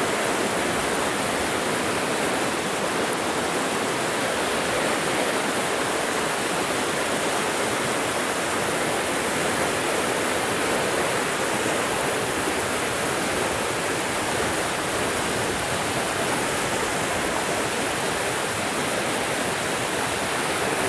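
Steady rush of a shallow, fast river running over riffles and small rapids.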